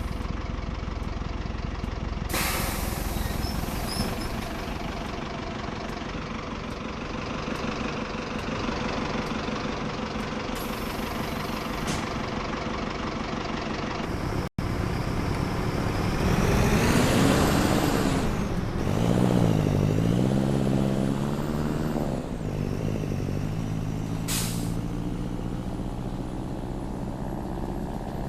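Diesel engine of a Mercedes-Benz OF-1418 bus running, with short hisses of compressed air from the air brakes several times. Past the middle the engine revs up and its pitch rises and falls for a few seconds before settling back to a steady run.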